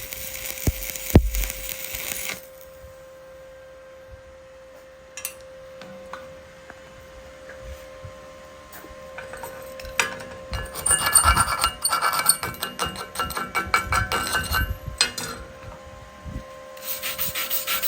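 A stick-welding (SMAW) arc crackling and hissing, which breaks off about two seconds in. After a quieter stretch, a chipping hammer gives a quick run of metallic clinks and taps as it knocks slag off the bead. Near the end a wire brush starts scratching steadily over the weld.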